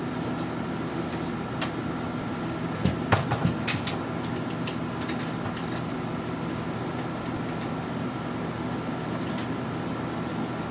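Steady machine hum with a thin high tone, typical of an indoor air-conditioning unit, with a few clicks and knocks about three seconds in.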